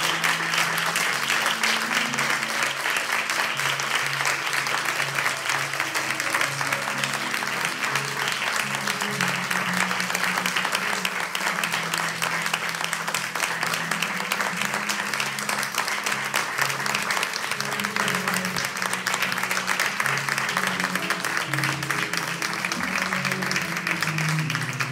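Audience applauding steadily, with instrumental music playing beneath the clapping.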